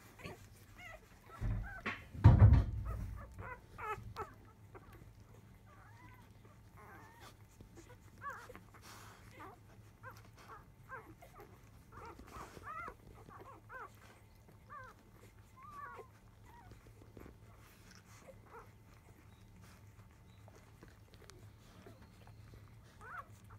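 Newborn Labrador retriever puppies, five days old, squeaking and whimpering in short high chirps while they nurse. About two seconds in, a loud low bump from a puppy being handled.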